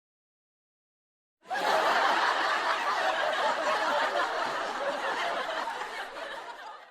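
Canned audience laughter, a laugh-track sound effect: a crowd laughing together, starting abruptly about a second and a half in and fading out near the end.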